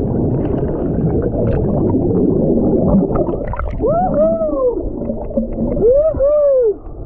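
A swimmer churning through lake water, heard with the microphone underwater: a muffled, gurgling rumble, with two muffled tones that rise and fall about four and six seconds in.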